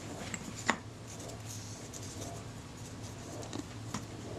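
Faint workbench handling sounds while a camera shutter's front plate is cleaned with lighter fluid. There is a sharp click about two-thirds of a second in, light rubbing, and a small tap near the end, over a low steady hum.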